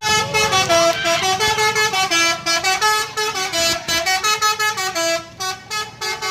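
A bus's 'telolet' multi-tone air horn playing a fast melody of short stepped notes, several changes of pitch each second, turning choppier with brief gaps in its second half.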